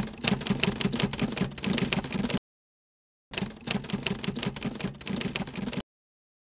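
Rapid, even clicking in two runs of about two and a half seconds each, broken by about a second of dead silence.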